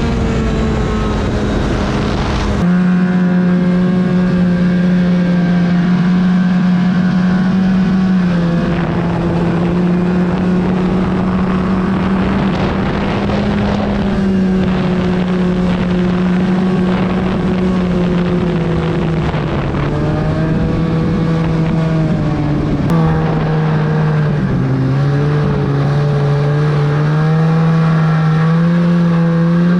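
2008 Arctic Cat F1000 Sno Pro snowmobile's two-stroke twin engine running at a steady cruising pitch. It eases down a little around a third of the way in, dips lower near the end and then climbs again. A heavy low rumble of wind noise sits under the engine for the first couple of seconds and stops abruptly.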